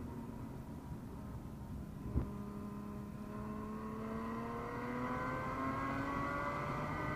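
2013 Porsche Boxster S (981) flat-six engine heard from inside the cabin, holding a steady note, then climbing in pitch from about three seconds in as the car accelerates hard in third gear. A single thump about two seconds in.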